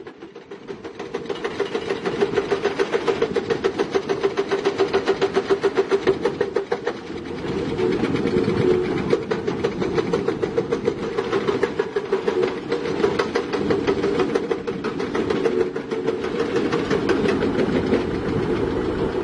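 Tracked earthmoving machine working, its diesel engine running under a rapid, even clanking of about five strokes a second. The clanking dips briefly about seven seconds in, then goes on less evenly.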